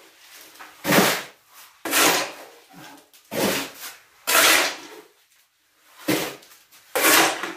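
Shovel scraping and scooping concrete mix, six rough strokes about a second apart.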